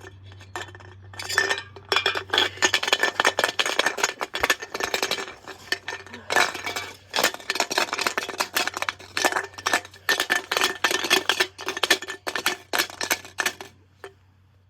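Washing machine clattering and banging: a dense, irregular run of sharp knocks and clinks that starts about a second in and stops near the end, over a steady low hum.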